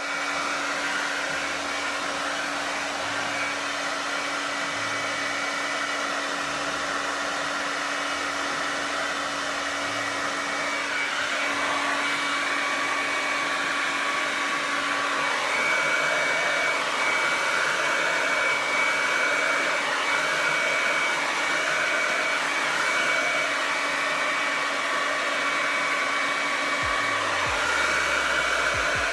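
Kiss 1875 Pro tourmaline ceramic hair dryer running steadily, blowing air with a steady hum underneath. About eleven seconds in its sound shifts and then wavers gently as the airflow changes.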